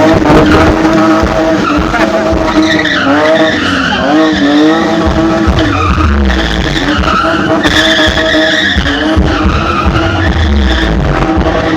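A drift car's engine revving hard, its pitch rising and falling over and over, with tyres squealing as the car slides sideways.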